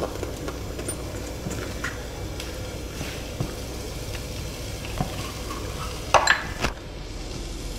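Light taps and scrapes of a plastic cup being pressed through bread slices onto a steel plate, with a short cluster of louder knocks about six seconds in, over a steady background hiss.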